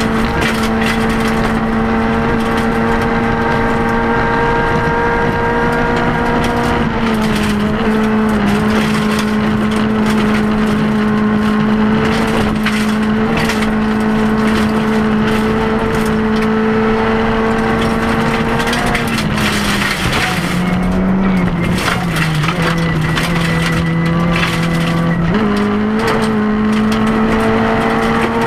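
Rally car engine heard from inside the cabin, running hard at high revs with a steady note that dips slightly about seven seconds in. The note drops lower for several seconds near twenty seconds in, then climbs back. Gravel crunches and rattles under the tyres and against the underbody.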